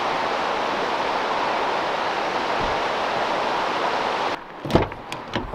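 Steady rush of a rocky creek running over rapids. It cuts off about four seconds in, followed by a few sharp knocks and clicks.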